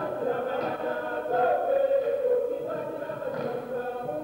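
A group of performers singing together, long held notes that shift in pitch from phrase to phrase.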